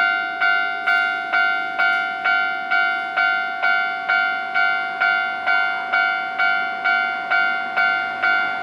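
Japanese railway level-crossing warning bell ringing at a steady rate of about two strikes a second, each clang fading before the next.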